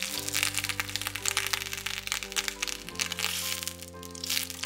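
Butter sizzling and crackling as it melts in a hot stainless-steel pan, with many small pops, under background music of sustained chords.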